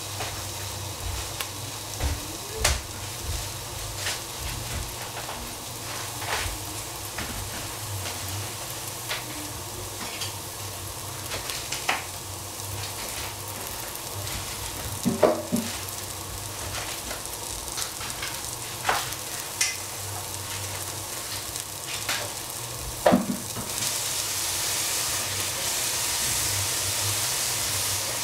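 Shiitake mushroom slices searing in oil in a stainless steel pot, a steady sizzle that grows louder near the end. Scattered short knocks of the wooden spatula against the pot, the loudest two about halfway and about two-thirds through.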